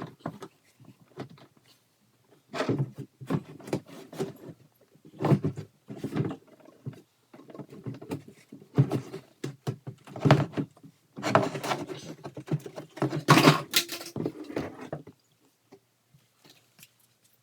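Sea-Doo GTX fuel tank knocking and scraping against the hull as it is worked out by hand, in irregular bunches of knocks and rubs that get busier toward the end and stop about two seconds before the end.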